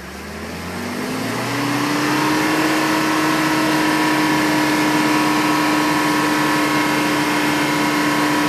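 Mitsubishi Triton L200 pickup's engine revving up over about a second and a half, then held steady at high revs.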